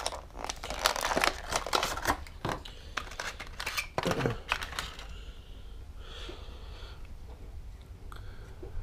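Crinkling and rapid clicking of plastic lure packaging being handled, dense for about five seconds and then mostly quiet, as a soft-bodied beetle lure is taken out of it.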